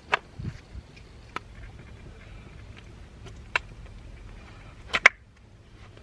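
Scattered sharp clicks and knocks from steering-wheel quick-release and hub parts being handled and fitted, with a louder double click about five seconds in.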